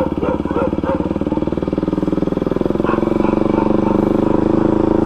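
KTM Duke 200's single-cylinder engine running steadily while riding, its fast firing pulses heard close up, the note getting a little louder and steadier about three seconds in.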